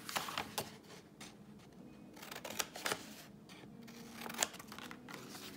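Scissors snipping through thin paper, a few sharp cuts among the rustle of a paper sheet being handled and turned.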